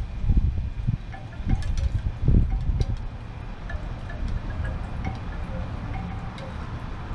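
Wind chimes tinkling in a breeze, scattered short tones, while gusts of wind buffet the microphone as a low rumble that swells and fades.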